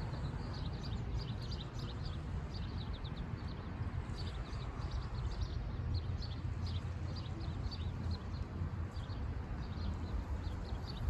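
Outdoor ambience: a steady low rumble with many quick, high chirps of small birds repeating throughout.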